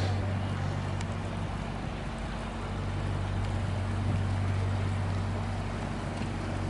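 Narrowboat's diesel engine running steadily at low revs as the boat motors slowly along, a constant low hum.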